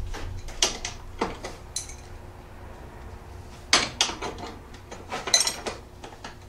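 Steel wrenches clinking and clicking against a foot peg bolt and nylon lock nut as an adjustable wrench and a 10 mm wrench tighten them. The clicks are scattered: a few in the first two seconds, then small clusters about four and five and a half seconds in.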